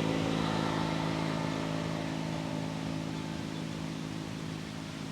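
A motor vehicle's engine running nearby with a steady hum that is loudest at the start and gradually fades away.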